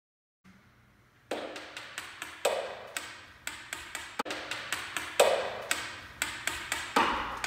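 Hammer striking the end of a drill bit held against a wall, used like a chisel, metal on metal with a short ring after each blow. The blows start about a second in and repeat about twice a second.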